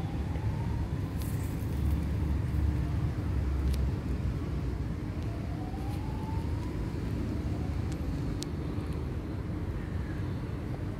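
Street traffic: a steady low rumble of passing road vehicles, swelling briefly a couple of seconds in, with a faint engine note rising twice.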